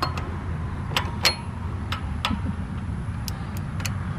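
Socket wrench being worked onto a water-pump bolt on a Cummins diesel engine: about eight irregular sharp metallic clicks and taps, over a steady low hum.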